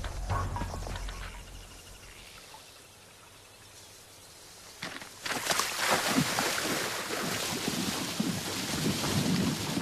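Feet splashing hard and fast through shallow river water as a man runs across it. The splashing starts suddenly about five seconds in, after a few quiet seconds.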